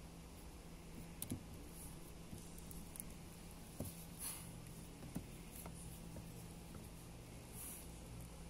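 Faint, scattered clicks and scrapes of a plastic door lock switch and its housing as a small latch is worked loose, over a steady low hum.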